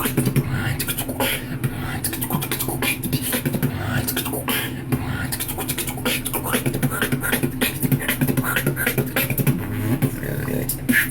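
Solo beatboxing: fast, dense vocal percussion, with sharp kick, snare and hi-hat clicks, over a steady low hum.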